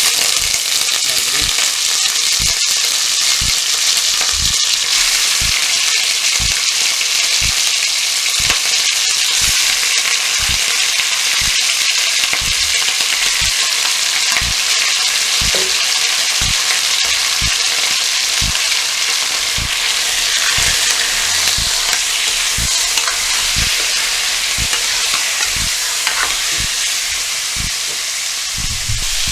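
Chicken pieces frying in hot oil in a pan: a loud, steady sizzle with frequent irregular pops and crackles of spattering oil.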